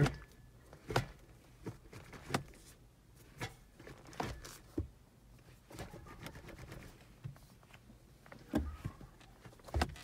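Stock gear lever of a Lexus SC300's five-speed manual gearbox being moved through the gears: a series of separate light clicks and clunks as it drops into and out of the gates.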